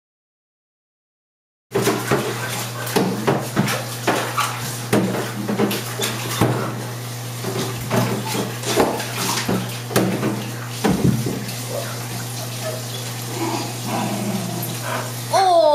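After a second and a half of silence, a Lakeland Terrier splashes and paws about in shallow bathtub water: irregular splashes and knocks against the tub over a steady low hum. Near the end a dog gives a short high whine.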